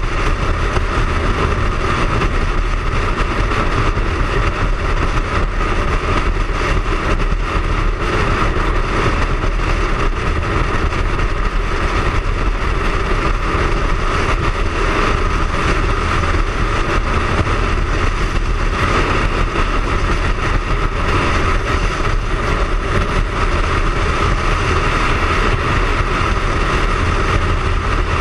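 Triumph Speed Triple's inline three-cylinder engine running steadily at cruising speed, mixed with the rush of wind on the bike-mounted microphone.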